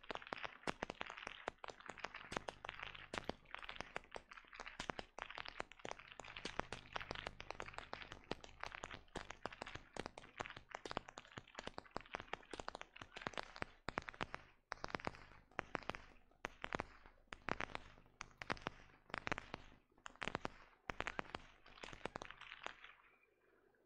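Aperschnalzen: a team of whip crackers swinging long whips in turn, making a long series of sharp cracks. The cracks come thick and overlapping at first, then settle into a more even rhythm of about two a second, and stop shortly before the end.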